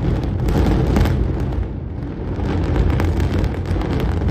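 Continuous low rumble with rapid crackling from the controlled explosive demolition of the Noida twin towers, as the charges go off and the high-rise towers come down.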